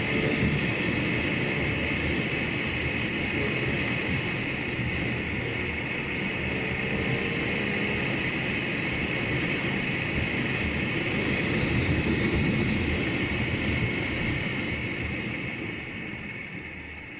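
Steady road and wind noise from a moving vehicle, with its engine running underneath; it eases off in the last couple of seconds.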